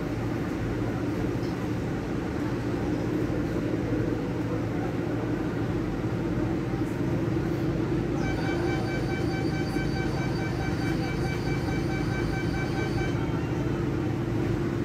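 Barcelona Metro Serie 4000 train standing at a station with its onboard equipment humming steadily. About eight seconds in, a rapid run of high beeps sounds for some five seconds, typical of the door-closing warning before departure.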